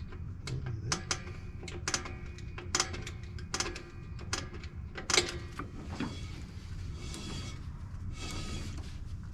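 Hand work on a drum brake: a series of sharp metallic clicks, about one a second, then a rough scraping rustle for the last few seconds.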